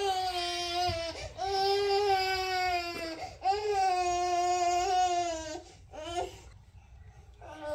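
Infant crying: a run of long, steady cries of a second or two each with short breaths between, then a brief cry, a pause, and another cry starting near the end.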